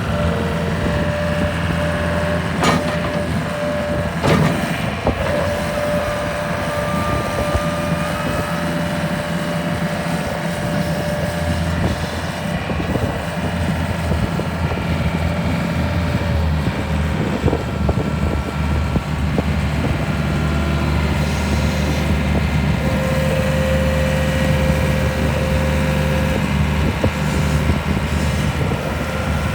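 Mustang 1650R skid steer loader's engine running steadily, with a steady whine above it and two sharp knocks a few seconds in.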